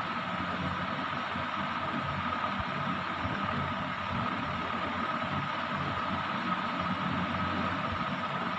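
Steady mechanical hum with a thin constant whine above it, unchanging throughout.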